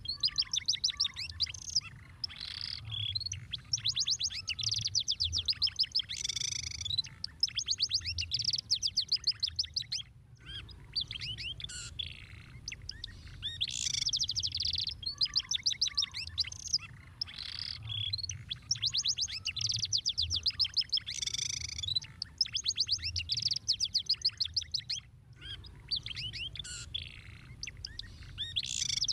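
Domestic canary singing a long run of song: fast trills of rapidly repeated high notes in phrases with short gaps between them. The song breaks off briefly twice.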